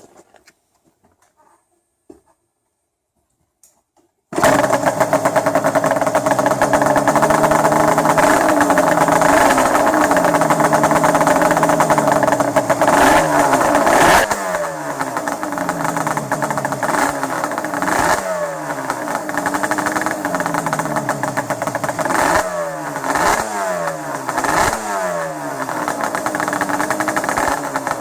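A Yamaha Banshee 350's twin-cylinder two-stroke engine fires up suddenly about four seconds in. It is the first start after six months in storage, with fresh fuel and a drained carburettor bowl. It runs hard, and from about halfway on it is revved in repeated throttle blips, roughly one a second.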